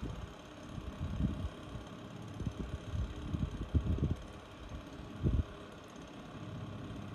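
Soft, irregular low thumps and knocks from hands handling beads, wire and tools at a worktable, over a steady fan-like room hum.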